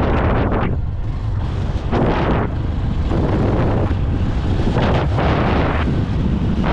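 Wind buffeting the microphone of a moving motorcycle, coming in irregular gusts over a steady low rumble from the ride.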